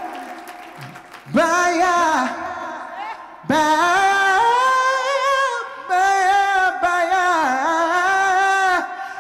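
A solo voice singing a cappella in R&B style: a short phrase, then a long run of held notes with vibrato and melismatic turns.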